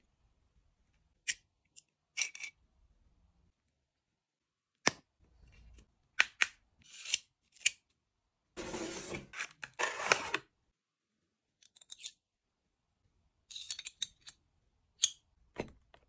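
Metal belt buckles and a cardboard box being handled: scattered sharp clicks and taps of metal being picked up and set down, with about two seconds of rustling around the middle.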